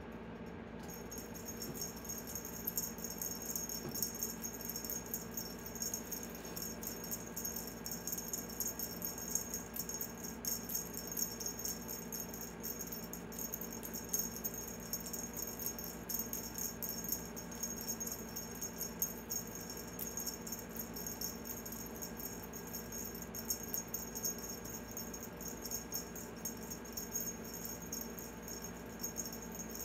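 Cat wand toy jingling and rattling as it is waved, a dense run of tiny rapid clicks with a high ring that starts about a second in and keeps going without a break.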